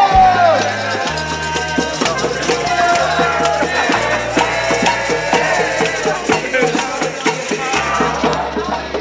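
Dance music with a bass line that steps from note to note about once a second, under dense shaken percussion: tambourines jingling fast.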